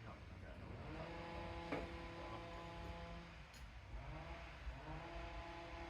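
Petrol chainsaw engine running at speed, faint. Its pitch sags about three seconds in and climbs back about a second later: the saw is struggling, which the owner puts down to a lack of either air or fuel.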